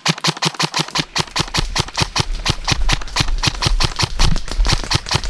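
Airsoft rifle firing a rapid, steady string of shots, about seven a second, close at hand.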